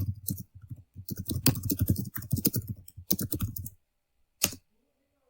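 Typing on a computer keyboard: a quick run of key clicks lasting nearly four seconds, then one last click.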